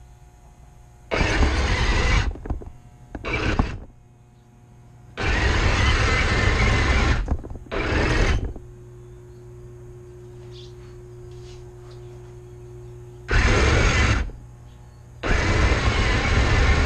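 Radio-controlled model tank driving in short stop-start runs: six loud grinding bursts of its motor and tracks on the dirt. Between runs there is a steady low hum.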